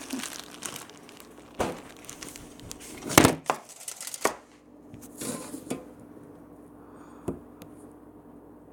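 Rustling, crinkling and tearing as a homemade stress ball is pulled open by hand, with several sharp snaps and clicks, the loudest a little after three seconds in.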